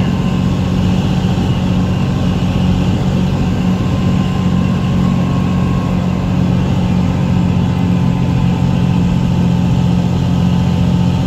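1975 Dodge Bighorn tandem-axle truck tractor's diesel engine running steadily while the truck drives on the road, heard from inside the cab as a constant low drone with road noise.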